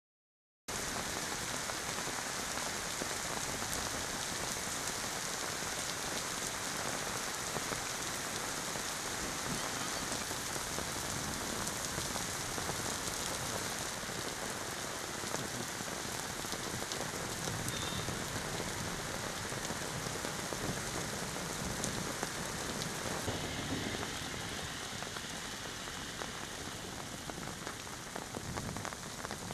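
Heavy rain falling steadily on a paved road and other hard surfaces: an even hiss with the patter of drops. It starts abruptly just under a second in, and a few sharper drop splats stand out near the end.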